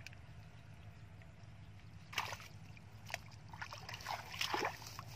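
Bare feet wading through shallow muddy water, with short splashes and sloshes about two seconds in, once more a second later, and a cluster of them near the end.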